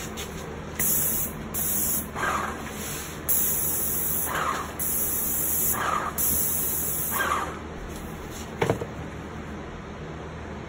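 Paint spray gun hissing in about five short passes of a second or so each, spraying paint onto a shutter louver, followed by a single sharp click.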